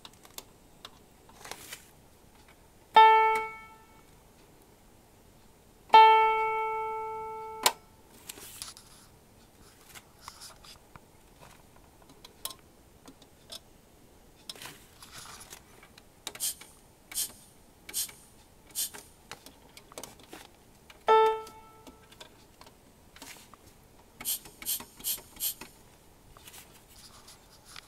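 Roland SC-88 Pro sound module sounding three single sampled piano notes of the same pitch from its preview function, the second held about a second and a half before it cuts off. Between the notes, its front-panel buttons and knob click, with a quick run of clicks near the end.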